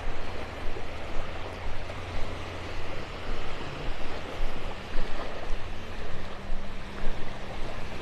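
Small waves washing over the shallows, with gusts of wind on the microphone making the level swell and dip unevenly.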